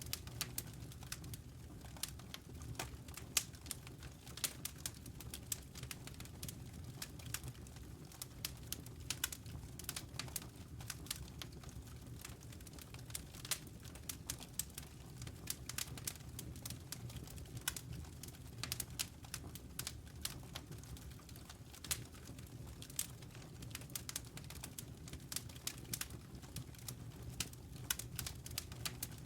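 Campfire crackling: wood snapping in frequent, irregular sharp pops over a low steady rumble of the flames.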